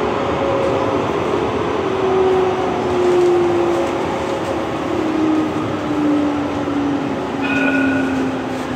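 Light-rail metro car running, heard from inside the passenger cabin: a steady rumble of wheels and running noise with an electric whine that falls slowly in pitch. A brief high beep sounds near the end.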